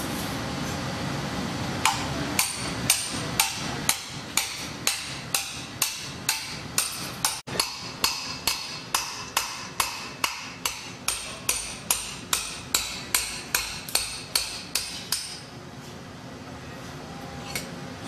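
Hammer blows on a Securam safe lock, struck steadily about twice a second, each blow ringing metallically. The blows stop for a couple of seconds near the end.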